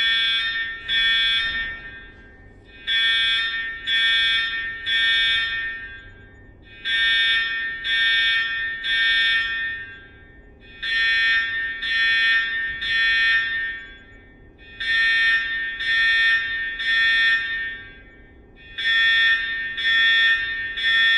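School fire alarm horn sounding a repeating pattern of three pulses and a pause, the temporal-three evacuation signal, cycling about every four seconds.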